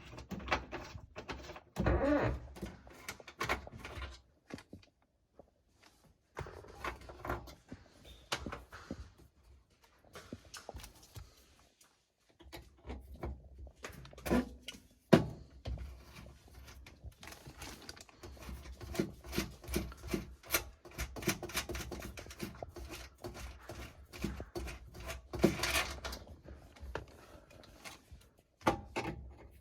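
Irregular clicks, taps and knocks of a nut driver and loose metal parts as an old radio is unfastened from a car dashboard, with one sharp knock about halfway through.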